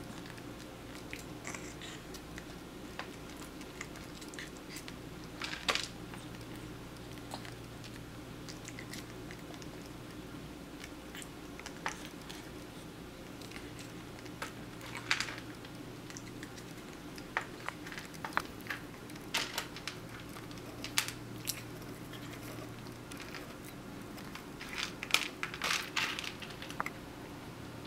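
Sparse light clicks and crunches as dry cat treats are picked from a plastic bowl with chopsticks and chewed by a Persian kitten, over a faint steady hum. The clicks come in small clusters, most thickly near the end.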